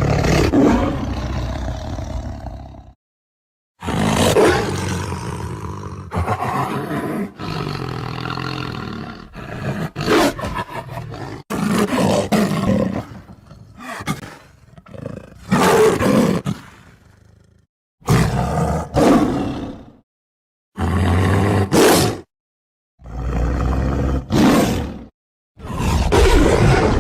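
Tiger roaring again and again: about eight separate roars of one to three seconds each, split by short gaps of dead silence, as in a cut-together sound-effect reel.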